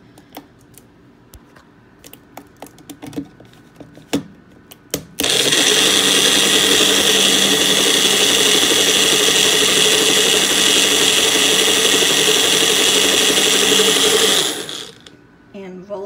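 Magic Bullet personal blender: a few light plastic clicks and taps as the cup is pressed onto the base, then about five seconds in the motor starts suddenly and runs steadily for about nine seconds, blending a light fruit juice, before winding down.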